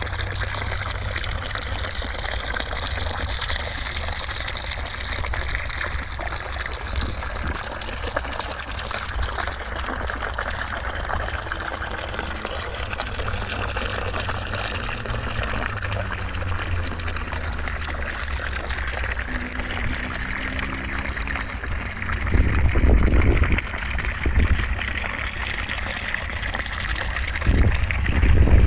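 Steady rushing noise like running water, played as white noise. A deeper rumble swells briefly about three quarters of the way in and again just before the end.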